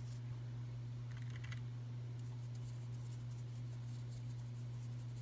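Steady low hum, with faint light ticks and scratches of a paintbrush dabbing on watercolour paper.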